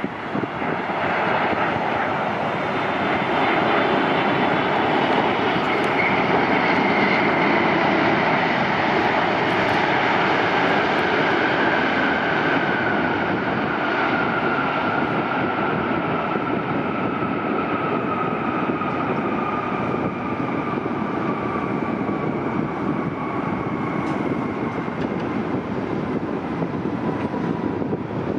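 Boeing 747-8F's four GEnx turbofan engines, loud after touchdown during the landing rollout. The noise swells in the first few seconds. A fan whine then falls slowly in pitch as the jet slows and moves away down the runway.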